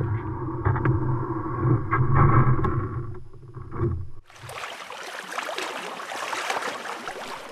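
A loaded canoe being hauled over a beaver dam: muffled rumbling with a few knocks as the hull drags over sticks and water. About four seconds in it cuts to a steady hiss of water rushing and splashing along the canoe's bow on choppy water.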